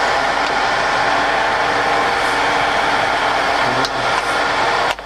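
Colchester Student 1800 lathe running steadily under power with the carriage power feed engaged. A short click and a brief drop in the sound come near the end, as a feed control is shifted.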